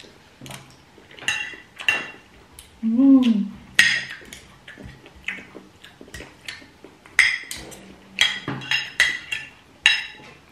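Spoon and fork clinking and scraping against a plate during a meal, a string of sharp clinks at irregular intervals. A short voiced sound, rising then falling in pitch, comes about three seconds in.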